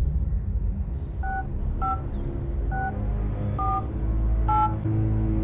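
Touch-tone phone keypad being dialled: five short two-tone key beeps at uneven intervals, over a low rumble.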